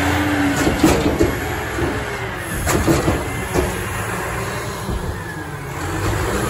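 Recycling truck's engine running steadily, with a few sharp metal clanks and knocks about one, three and three and a half seconds in.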